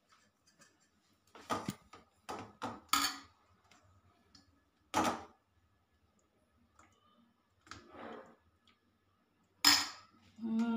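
Stainless steel spoon and ladle clinking and scraping against a steel plate and a steel serving bowl while food is dished out: a series of short, sharp clinks spaced irregularly, the loudest about five seconds in and just before the end.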